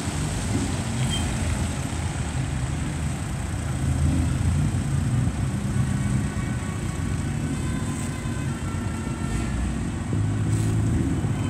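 Car engine running with a low, steady rumble, swelling a little about four seconds in and again near the end.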